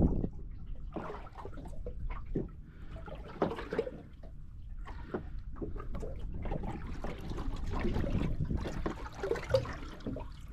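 Small waves lapping and slapping against the hull of a drifting boat in irregular splashes, over a steady low rumble of wind on the microphone.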